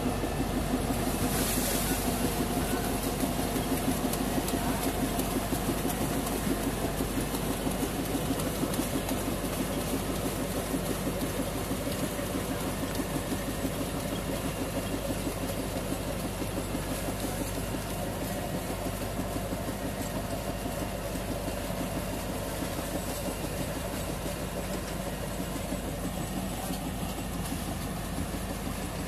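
Tractor engine running under load while its rear-mounted rotavator churns through soil and plant debris, a steady pulsing mechanical run that eases slightly after about ten seconds.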